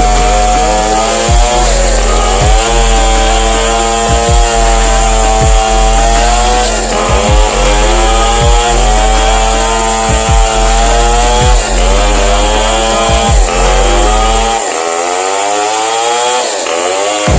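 Modified Stihl chainsaw with a long 1.7 m bar ripping lengthwise through a banyan log. The engine runs hard under load, its pitch sagging and recovering about every second and a half as the cut goes on.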